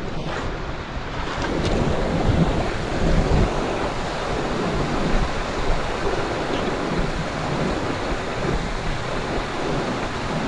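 Steady rushing of a creek, with wind buffeting the microphone in uneven low gusts.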